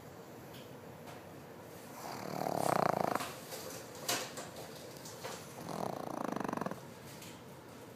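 Pig snoring: two snores, each about a second long, some three and a half seconds apart.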